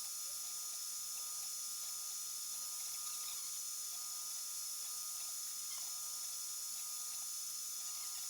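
3D printer stepper motors whining in short squeaks that step up and down in pitch as the print head moves, over a steady high hiss with fixed high tones.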